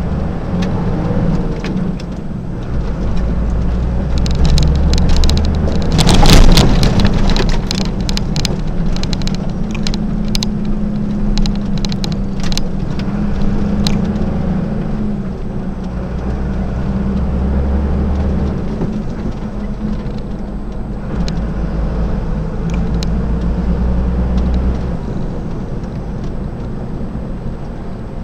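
Delivery truck's diesel engine heard from inside the cab while driving: a steady low hum whose low note comes and goes as the truck pulls and eases off, over road noise and scattered rattles and clicks from the cab. A brief loud rush of noise about six seconds in is the loudest moment.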